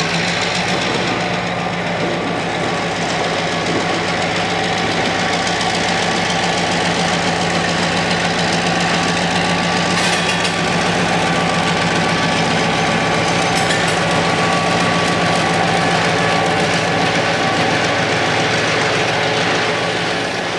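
EMD GP7 and FP9 diesel locomotives passing close under power, their two-stroke EMD 567 engines running steadily, with the rumble of autorack freight cars rolling along behind them.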